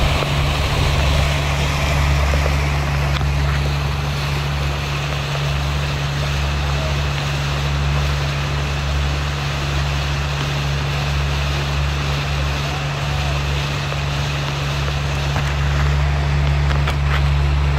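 Motorboat engine running steadily at cruising speed, a constant low drone, under the rushing wash of water along the hull.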